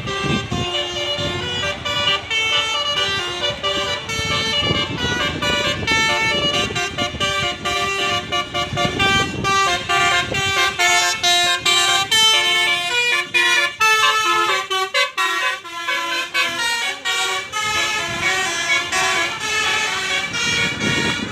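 Basuri telolet musical horn on a tour bus playing a long melody: several horn tones sound together and step quickly from note to note.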